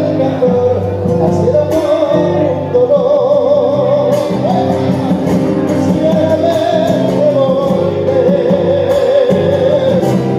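Live band playing a zamba: acoustic guitars strummed over a drum kit, with a voice singing the melody with vibrato.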